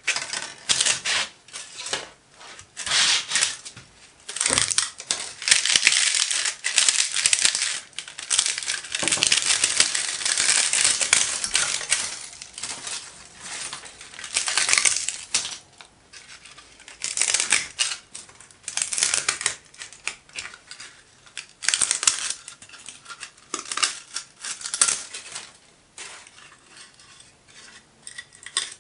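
Thin 3D-printed plastic support material being snapped and peeled by hand off a printed pattern. It makes irregular cracking and crackling in quick clusters, with short pauses between them.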